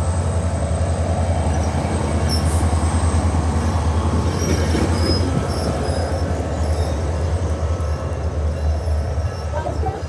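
SunRail commuter train's bilevel coaches rolling past and pulling away, a steady rumble of wheels on rail. A few faint high wheel squeaks come about halfway through.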